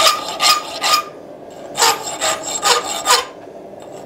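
Hand file on a forged steel hasp clamped in a vise, cleaning up hacksaw cuts. There are two runs of short, quick rasping strokes, about three and then about five, with a brief pause between.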